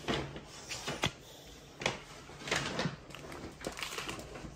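Small cardboard toy box and its paper insert being handled and opened: a few short scrapes, rustles and clicks of cardboard and paper.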